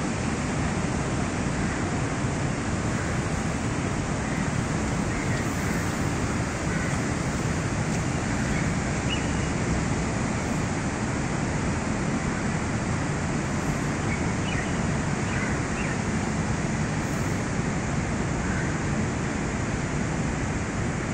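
Steady outdoor city ambience: a continuous, even rushing noise with a few faint high chirps now and then.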